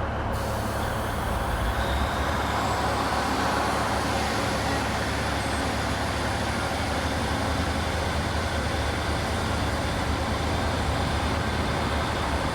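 Class 156 Sprinter diesel multiple unit's underfloor diesel engines running steadily as the train pulls away.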